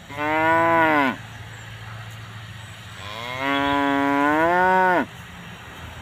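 Zebu-type cattle mooing twice: a short call of about a second right at the start, then a longer call of about two seconds that rises in pitch, holds, and drops away at the end.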